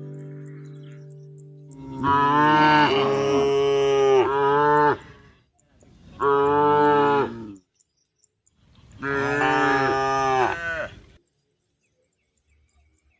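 Cow mooing three times: a long call of about three seconds with a break in pitch partway, a shorter one, then another long one, each a drawn-out bellow, calling to the herd.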